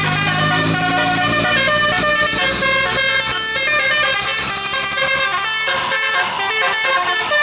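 A bus's Basuri musical 'telolet' air horn playing a fast melody of changing notes, with a low engine hum underneath that stops about six seconds in.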